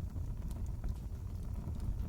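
Wood fire crackling in a fireplace: a steady low rumble of the flames with a few scattered sharp pops.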